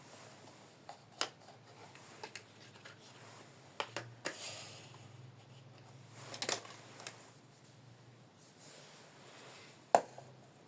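Small plastic toy kitchen pieces being handled: scattered light clicks and taps with a brief soft rustle of packaging, and one sharper tap near the end.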